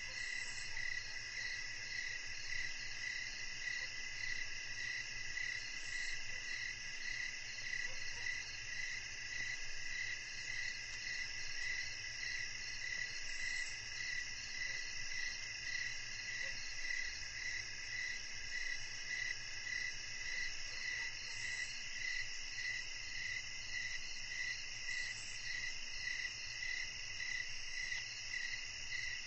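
Night chorus of crickets and other insects: several steady high trills layered together, one of them pulsing at an even rate.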